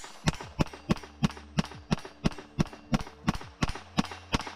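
Taurus TX22 .22 LR semi-automatic pistol fired in quick succession, about three sharp shots a second and some fourteen in all. Every round cycles without a malfunction.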